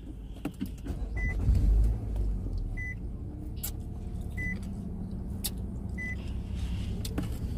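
A car's warning chime beeping four times, evenly, about every second and a half, over the low steady rumble of the running car. A few small clicks, and a heavier low thump about a second and a half in.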